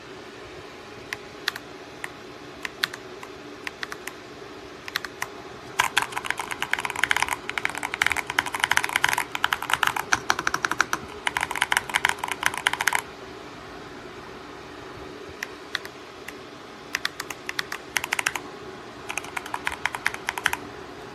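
Typing on a YUNZII B75 PRO gasket-mounted 75% mechanical keyboard. A few scattered keystrokes give way to a fast run of typing from about six seconds in to about thirteen. Slower keystrokes follow, then another quicker burst near the end, over a steady low hum.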